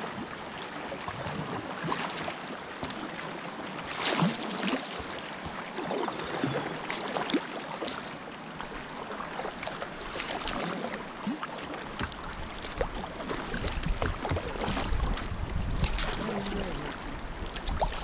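River current flowing steadily, with occasional sharp splashes from kayak paddles in the water. About twelve seconds in a low rumble joins it.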